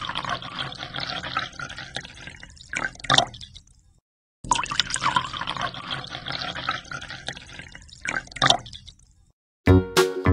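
A thin stream of water pouring into an empty glass aquarium tank, splashing on the glass bottom and then into the rising water. It breaks off about four seconds in, starts again half a second later, and stops near the end as music comes in.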